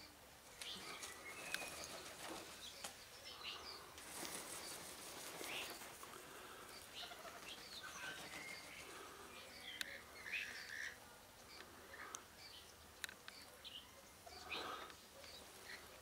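Rainbow lorikeets feeding, giving scattered short chirps and chattering calls. A few sharp clicks and a brief rustle about four seconds in are also heard.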